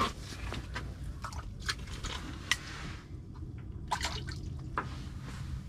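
Faint, irregular small clicks and water drips over a low steady hum.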